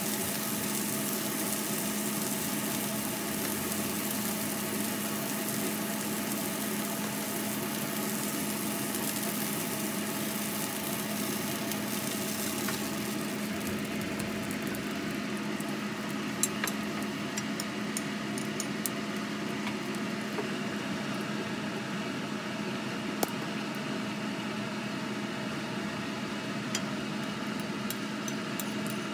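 Steak cubes sizzling in a frying pan over a steady motor hum; the sizzle fades out about halfway through. After that come a few light clinks of tongs against the plates.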